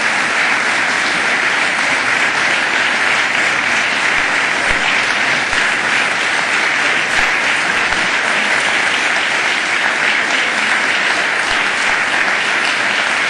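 Loud, steady applause from many people clapping together, as the members of the assembly applaud the end of a statement.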